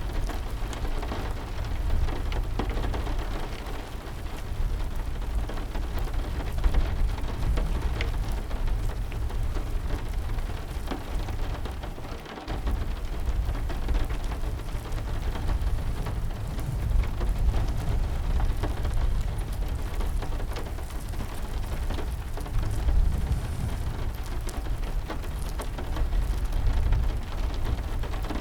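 Steady heavy rain with a deep rumble underneath, mixed with scattered sharp crackles of a burning wood fire.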